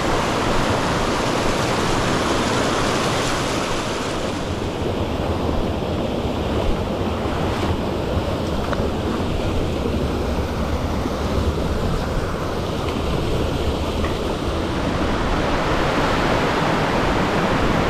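Steady rush of white water in a mountain stream pouring over rocks near a waterfall, a continuous roar with no breaks.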